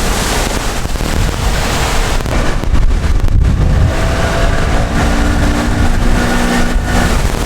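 Strong wind buffeting the microphone over open water, a heavy steady rumble. About four seconds in, a faint steady hum with several pitches joins it for about three seconds.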